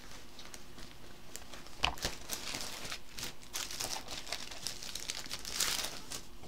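Irregular crinkling and rustling as a stitching project and its chart are picked up and handled, with one short knock about two seconds in.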